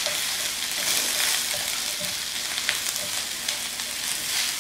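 Sliced red and green bell peppers and onions sizzling steadily in olive oil in a grill pan, with a few light clicks of metal tongs moving them.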